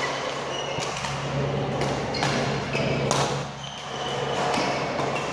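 Badminton rally: rackets hitting the shuttlecock in sharp smacks about once a second, over the general noise of a busy sports hall and a steady low hum.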